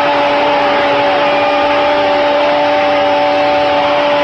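A Spanish-language football commentator's drawn-out "goooool" goal call, one long shout held at a steady pitch over stadium crowd noise.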